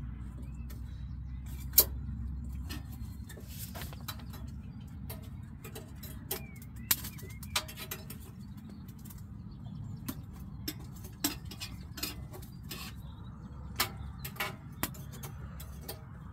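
Firelighters and kindling catching in a wood-burning tent stove: irregular sharp crackles and pops over a low steady rumble.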